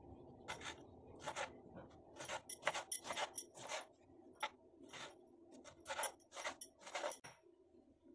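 Kitchen knife slicing and dicing a tomato on a wooden chopping board: soft, irregular knocks of the blade against the board, about two a second.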